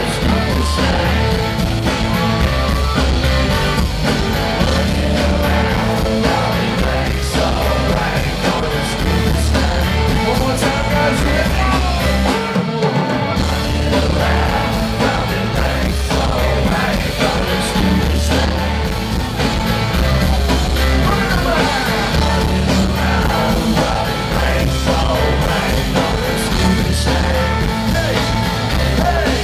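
Live rock band playing through a festival PA: electric guitar, bass guitar, drums and keyboard, heard from the audience, with a steady pulsing bass line. The bass and drums stop briefly about 13 seconds in, then pick up again.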